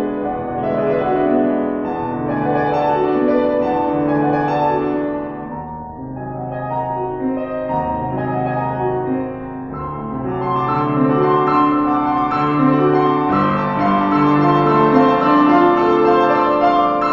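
Piano playing held notes and chords, dipping in loudness about six seconds in, then swelling fuller and louder from about ten seconds.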